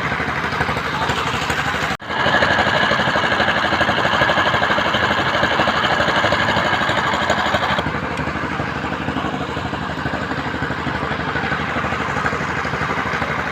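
Construction machinery engine running steadily with a fast pulsing beat. It is briefly cut about two seconds in, then runs louder with a higher whine until it eases back about eight seconds in.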